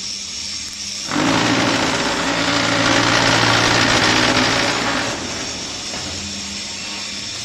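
Concrete block machine's vibrating mould table: a loud rattling buzz that starts suddenly about a second in and stops after about four seconds, compacting the concrete in the mould, over the machine's steady running hum.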